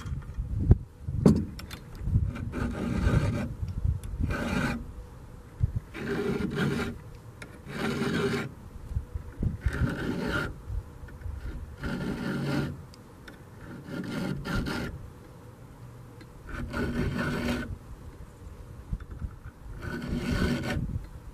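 Round chainsaw file rasping across the cutters of a Granberg ripping chain: hand-sharpening in about ten slow, even strokes, roughly one every two seconds, each with a slight metallic ring.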